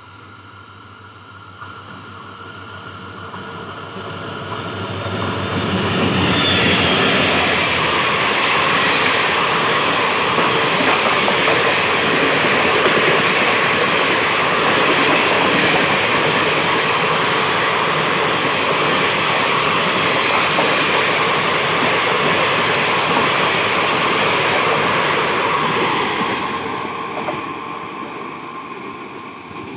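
Diesel-hauled Indian Railways express train running through a station at high speed: a rumble builds as it approaches, then a loud, steady rush of wheels and coaches passing for about twenty seconds, fading away near the end as the train goes off.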